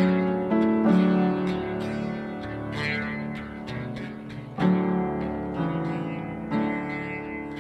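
Acoustic guitar played solo: chords strummed and left to ring, changing every second or so, with a quicker run of strums in the middle.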